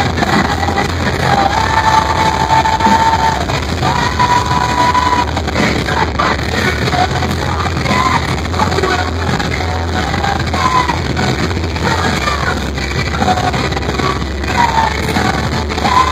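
Live rock band playing loudly, electric guitars and drums under a singer's sung and shouted vocals, with long held notes about two and four seconds in.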